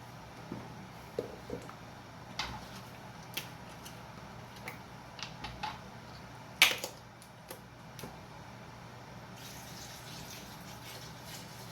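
Chicken broth being poured into a cooking pot, with liquid pouring and dripping sounds, scattered clicks and knocks of containers and utensils, and one sharp clack a little past halfway. A steady pouring hiss sets in near the end.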